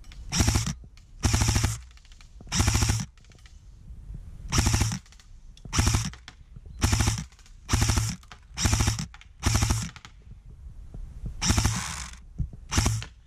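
King Arms Black Rain Ordnance airsoft electric gun (AEG) firing on full auto, powered by a 7.4 V LiPo battery. About a dozen short bursts come a second or so apart, each a rapid rattle of shots, with a longer burst near the end.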